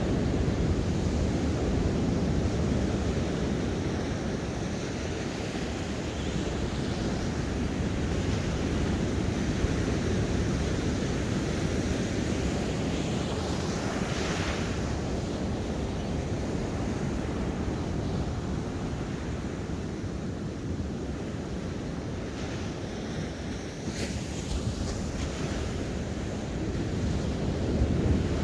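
Ocean surf breaking and washing in steadily, with wind rumbling on the microphone. A wave breaks with a brighter hiss about halfway through and again near the end.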